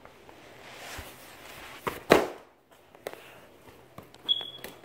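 Footsteps and knocks of someone moving about, with one loud thump about two seconds in and a short high squeak near the end.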